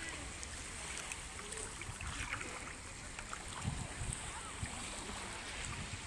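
Calm, waveless sea water lapping gently, with wind gusting on the microphone as low uneven rumbles and faint distant voices of people in the water.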